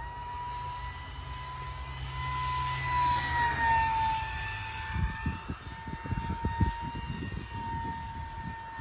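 Whine of a 50 mm electric ducted fan on a scratch-built RC jet, a steady high pitch running at speed. It swells loudest about three seconds in and settles slightly lower in pitch. In the second half irregular low rumbles buffet the microphone.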